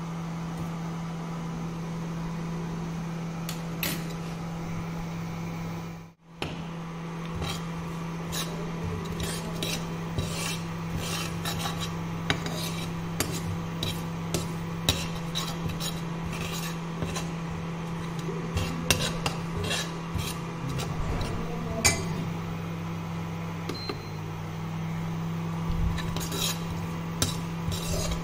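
Steel ladle clinking and scraping against a nonstick kadhai while stirring spices in hot oil, a quick run of clicks from about eight seconds in, over a steady low hum. The sound drops out briefly about six seconds in.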